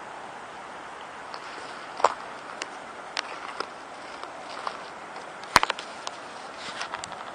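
Steady hiss of the shallow river's flowing water, with scattered sharp clicks and knocks from about two seconds in, the loudest one a little past halfway.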